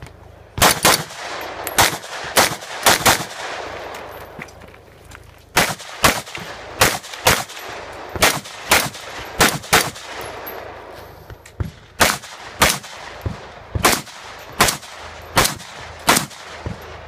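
Semi-automatic AR-15-style rifle firing about two dozen shots, many in quick pairs, with two pauses of about two seconds between groups of shots.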